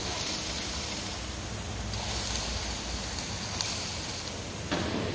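Steady workshop noise: an even hiss over a low, constant machine hum.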